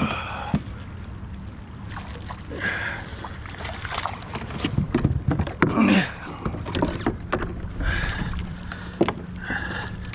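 Knocks, clicks and water sounds on an Old Town Sportsman 106 PDL pedal kayak while a hooked bass is played and reeled in.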